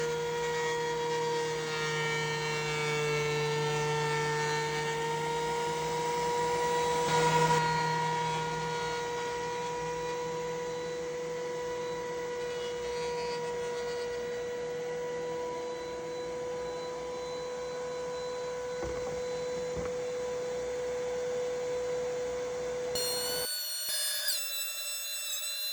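Wood planer running with a steady motor whine over the noise of its cutterhead as rough-cut lumber is fed through, briefly louder about seven seconds in. Near the end the sound changes abruptly to a higher whistling whine.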